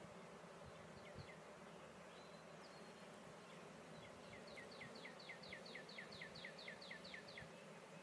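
Honey bees humming faintly and steadily around an open hive. About halfway through, a fast run of short high chirps starts and repeats about four or five times a second for some three seconds.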